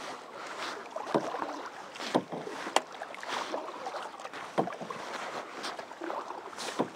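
Canoe paddling: the paddle dipping and splashing through the water, with several sharp knocks at irregular moments.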